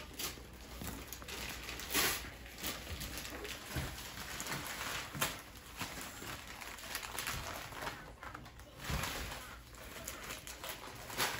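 Gift wrapping paper crinkling and tearing in irregular bursts, with a few sharper rips.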